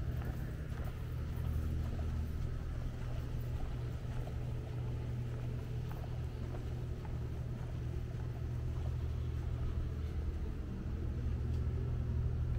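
Steady low rumble, with a few faint ticks scattered through it.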